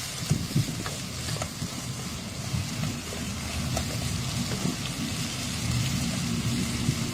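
Long beans frying and sizzling in a pan, with a few sharp clicks early on from stirring and a low rumble underneath that grows louder near the end.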